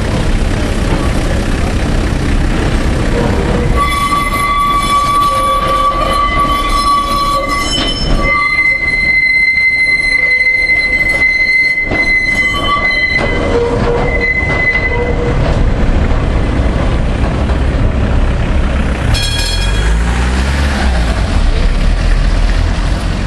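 Steel wheels of historic tram 954 and its trailer 858 squealing on a tight curve over the rumble of wheels on rail. A steady high squeal starts about four seconds in, jumps higher about eight seconds in, and fades out around thirteen seconds.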